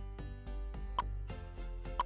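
Quiz countdown-timer music: a steady ticking beat with a sharper, louder tick once a second and softer quick ticks between.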